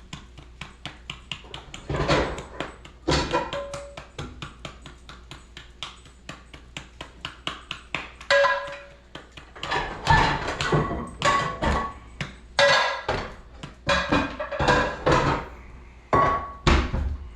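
Kitchen clatter: quick, even tapping for several seconds, then louder metal clanks with brief ringing from about eight seconds in, as a frying pan is got out and handled.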